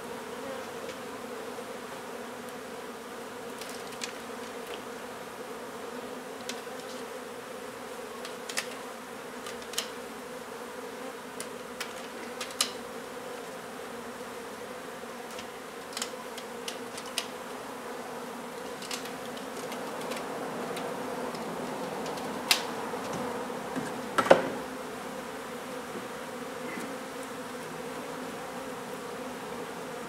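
A honey bee colony buzzing in a continuous, steady hum as its hive is opened up and removed. Scattered sharp clicks and knocks sound over it, the loudest a pair about three quarters of the way through.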